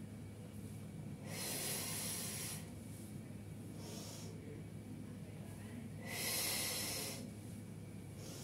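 A woman's heavy breathing as she holds a forward toe-touch stretch: two long, loud breaths about four and a half seconds apart, each lasting about a second, with a fainter breath between them, over a steady low hum.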